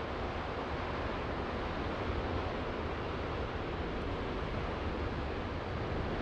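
Steady wash of rough sea surf mixed with wind rumbling on the microphone.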